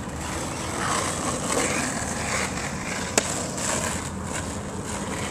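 Skateboard wheels rolling over asphalt as a skater rides a manual past, the rolling getting louder from about a second in. One sharp click comes about three seconds in.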